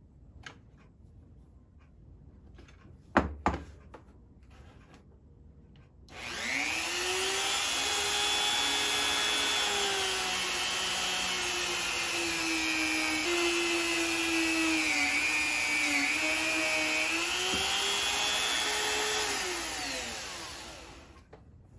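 Flex-shaft rotary tool (Dremel-type) running a small buffing wheel against steel pliers: a high-pitched motor whine that starts about six seconds in, sags and wavers in pitch as the wheel is pressed to the work, and winds down near the end. Before it, a few light clicks and one sharp knock about three seconds in.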